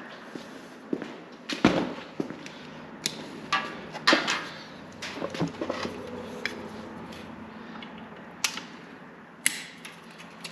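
Hand tools and metal parts being handled: a string of separate sharp clicks and clanks, the loudest about two and four seconds in, over a faint steady hum.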